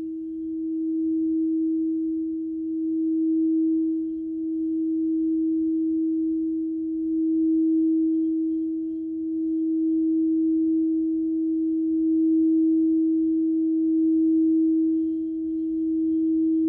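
Alchemical crystal singing bowl sustaining one steady, nearly pure tone, its loudness swelling and fading about every two seconds.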